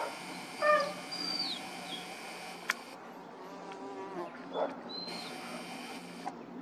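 Steady distant buzzing drone of a Cessna 404 Titan's twin piston engines overhead. A camera's zoom motor whirs in two stretches that stop abruptly, and a few short animal calls cut in, the loudest just under a second in.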